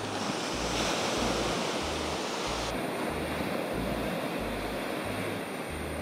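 Small waves breaking and washing up a sandy beach: a steady surf.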